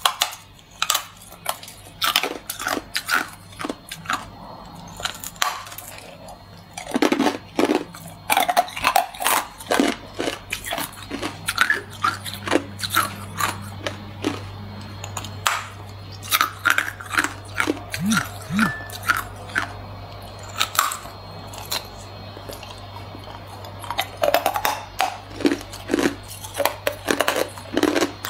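Hard white ice being bitten and chewed: many sharp, crackling crunches in quick runs, with short pauses between bites.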